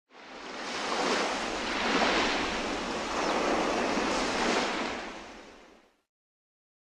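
A steady rushing noise, like surf, that swells and eases and then fades away about five to six seconds in.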